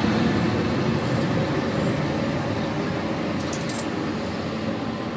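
Intercity passenger train running away along the track, its rumble fading steadily as it pulls off into the distance. A few faint high ticks come about three and a half seconds in.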